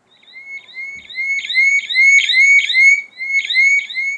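12 V electronic alarm siren of a breadboard IR security alarm, switched on through its BC547 transistor by the IR receiver, wailing in rapid upward-sweeping chirps, about three a second. It grows louder over the first second or so, dips briefly about three seconds in, then cuts off suddenly.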